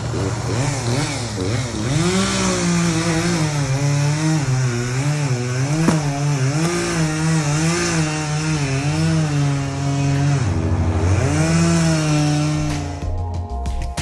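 Chainsaw cutting up a palm trunk, its engine pitch sagging and rising as the chain bites and frees. The pitch dips about ten and a half seconds in, comes back up, and the saw stops near the end.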